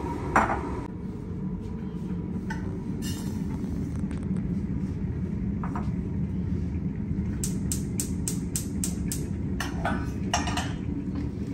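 Kitchen clatter of crockery and utensils over a steady low rumble. A sharp knock comes about half a second in, then a quick run of about eight light clicks and two knocks near the end.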